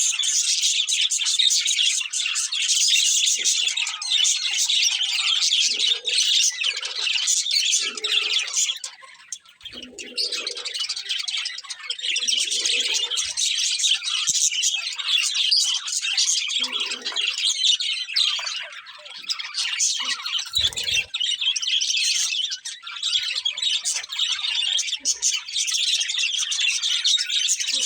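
Several budgerigars chirping and chattering continuously in a dense, high-pitched twitter, with brief lulls about a third of the way in and again about four-fifths through.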